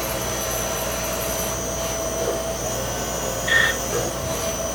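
Yang CNC lathe running with the spindle turning, a steady mechanical whir with a constant high whine. A short high chirp comes about three and a half seconds in.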